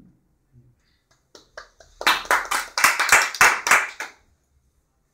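A small group clapping by hand: a few scattered claps, then about two seconds of brisk applause that stops suddenly.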